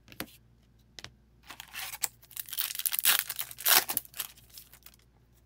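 Foil wrapper of a trading-card pack being torn open and crinkling, a dense crackle of about three seconds that is loudest shortly before it stops. A couple of light clicks come first.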